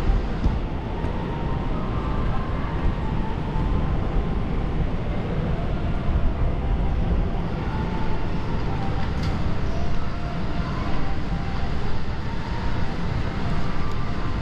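Steady low rumbling background noise, with faint higher sounds coming and going within it.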